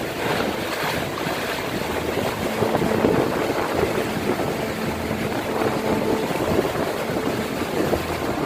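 Storm wind and rough, whitecapped waves washing around moored boats and the shore: a steady, noisy rush.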